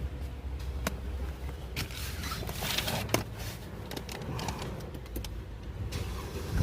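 Mercedes-Benz S350 bonnet being lowered and shut: a string of clicks and knocks, with one sharp latch knock about three seconds in, over a steady low hum.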